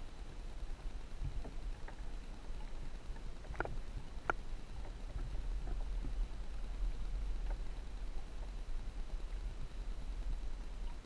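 Muffled low rumble of water heard through a GoPro's waterproof housing held underwater, with a few faint clicks, the clearest two close together about a third of the way in.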